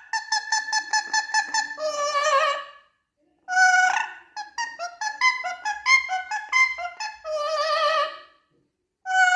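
A high voice singing in operatic style: held notes with vibrato and quick runs of short, staccato notes stepping up and down, in several phrases separated by brief silences.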